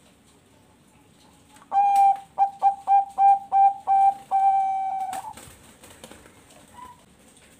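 Zebra dove (Bangkok-type perkutut) singing one full song phrase: an opening note, a quick run of short clipped notes, then a long held final note, about three and a half seconds in all.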